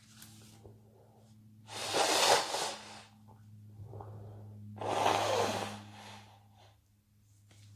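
A person sneezing twice, about three seconds apart, with a faint breath or sniff between the sneezes.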